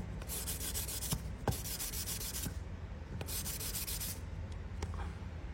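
Hand-polishing a silver-plated Zippo lighter case: three bouts of rapid back-and-forth rubbing strokes, each under a second long, bringing up the shine of the silver plating.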